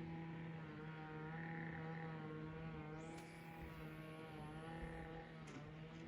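Distant engine running steadily at a constant pitch, with a faint high hiss joining about halfway through.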